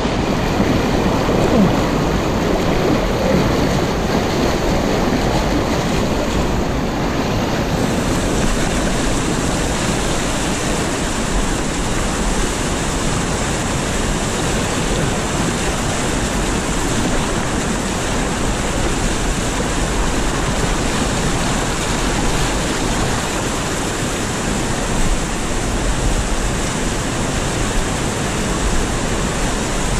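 Whitewater rapids rushing steadily over rock shoals, a loud, even roar of water.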